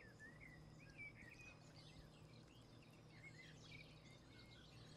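Near silence: faint room tone with a low steady hum and faint, scattered bird chirps in the background.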